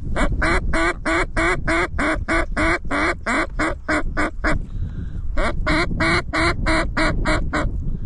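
Duck call blown by a hunter in two fast runs of loud quacks, about four a second, each note dropping in pitch, with a break of about a second midway. Wind rumbles on the microphone underneath.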